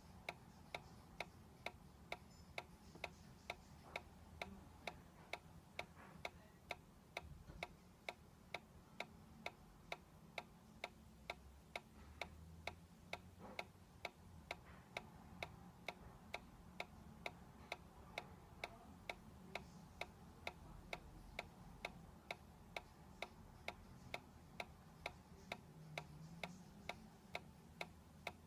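Solar-powered dancing cactus toy ticking steadily, about two sharp clicks a second, as its swing mechanism rocks the figure back and forth.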